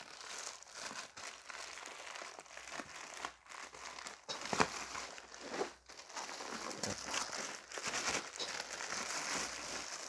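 Plastic courier mailer packaging being handled and pulled open by hand: continuous crinkling and rustling of thin plastic film, with occasional sharper crackles.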